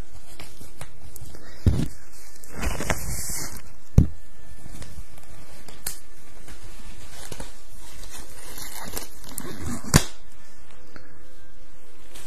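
Close-microphone ASMR handling sounds over a steady background hiss: a stretch of rustling, crackly noise about two to three seconds in, and two sharp taps about 4 and 10 seconds in.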